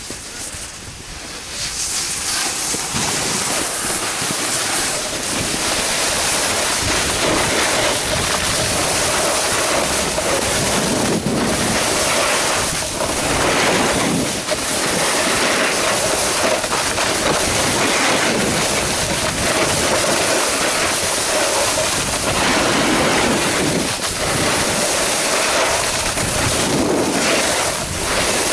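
Wind rushing over the microphone and the hiss and scrape of edges sliding over packed snow during a downhill run. The noise picks up about two seconds in, with a few louder scrapes now and then.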